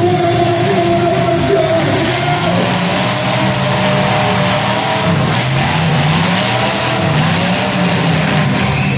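Demolition derby cars' engines revving up and down over a steady din, their pitch repeatedly climbing and dropping.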